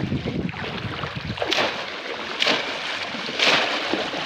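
Water splashing and sloshing, with a sharp splash about once a second, as of someone working through shallow water by hand.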